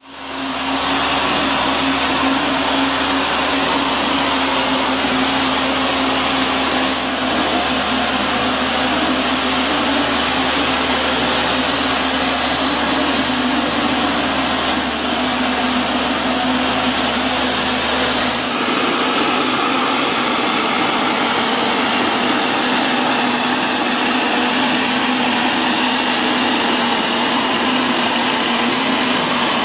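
Mortar mixing pump running: a steady mechanical drone with a constant hum and a strong hiss. A deep low hum underneath stops about 18 seconds in.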